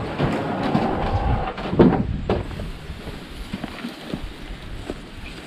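A small sampan made from a cut-open blue plastic drum being dragged across wooden floorboards, a loud scraping with two knocks about two seconds in. After that it is dragged more quietly over grass.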